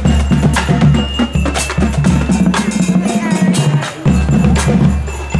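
Marching band drumline playing a cadence at close range: sharp stick and rim clicks over a rhythm of bass drum beats.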